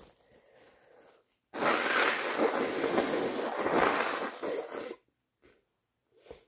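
A person with a bad head cold blowing their congested nose hard: one long, loud, wet blow of about three and a half seconds, starting a second and a half in. Faint breathing comes before it and a couple of short sniffs near the end.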